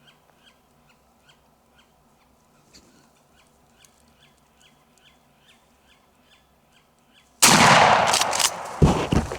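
Faint bird chirps repeating about twice a second, then about seven seconds in a single very loud shotgun blast that echoes for over a second as a Merriam's turkey is shot at close range.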